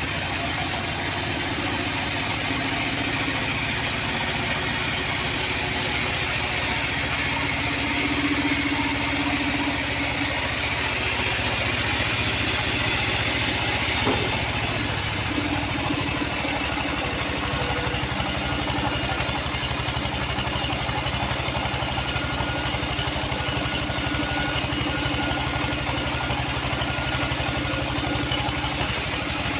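Homemade band sawmill running steadily, its motor drone under the noise of the blade cutting timber, with one sharp click about halfway through.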